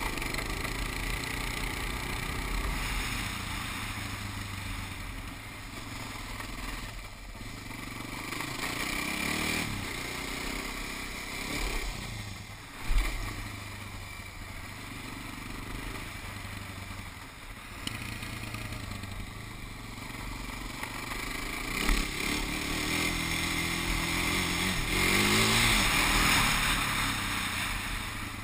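Suzuki ATV engine running as the quad is ridden over grass, the revs rising and falling, louder with a rev-up near the end, over hissy wind noise. A sharp thump about halfway through.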